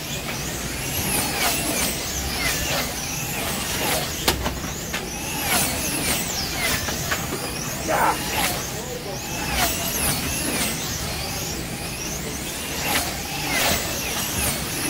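Electric motors of wing slot cars whining as they lap the track, the pitch rising and falling over and over as the cars accelerate and brake through the turns. Sharp clicks and knocks break in now and then.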